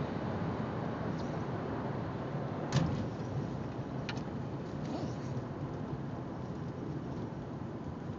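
Steady road and engine noise inside the cabin of a moving car, with a sharp click about three seconds in and a fainter one a little later.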